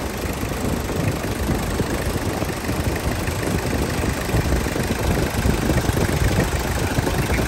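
Mitsubishi Pajero Fieldmaster's engine idling steadily.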